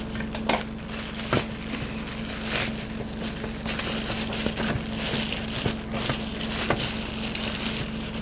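Parcel packaging being torn open and handled: irregular crinkling and crackling with occasional sharp clicks.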